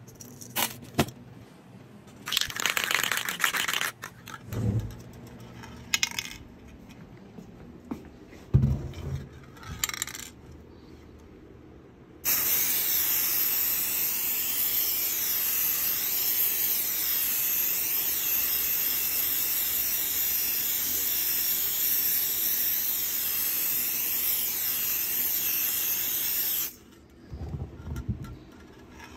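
Small metal hex nuts clinking and rattling as they are handled and set around a rubber mold. Then an aerosol can of mold release sprays a steady hiss for about fourteen seconds, followed near the end by a few dull knocks.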